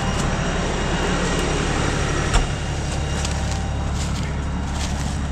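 LS compact tractor's diesel engine running steadily, with a single knock about two seconds in.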